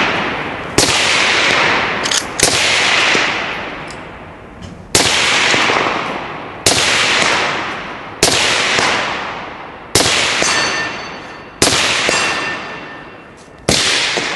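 Rifle fired in a steady string of about eight shots, one every one and a half to two seconds. Each shot is a sharp crack followed by a long echo that fades away.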